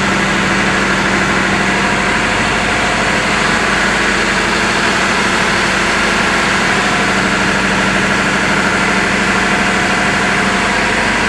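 A large engine running steadily at a constant speed, a loud, even machinery drone with a steady low hum.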